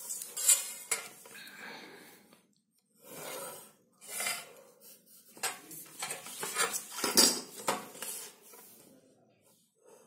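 Steel ruler clinking and scraping as it is slid and set down on paper over a table, with a pencil scratching along its edge. Several sharp metallic clicks stand out, the loudest about half a second in and about seven seconds in.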